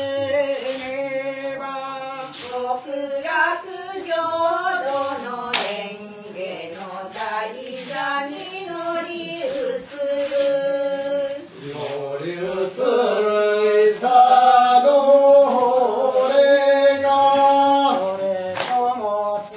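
A group of men and women singing a slow song together in long held, sliding notes, accompanying a circle dance, with a sharp tap about every three seconds.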